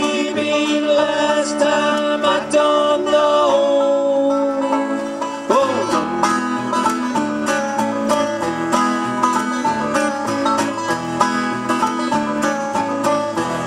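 Instrumental break of a bluegrass song played on banjo, acoustic guitar and upright bass, with no singing. The banjo picks quick notes, and the playing gets busier from about six seconds in.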